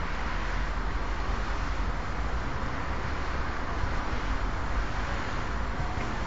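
Steady outdoor background noise, a low rumble under an even hiss, with no distinct events.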